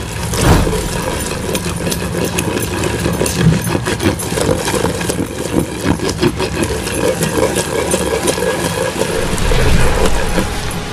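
Wooden pestle grinding whole red chillies and garlic, wetted with water, into a coarse paste in a large mortar: a steady run of quick, uneven knocks and scraping.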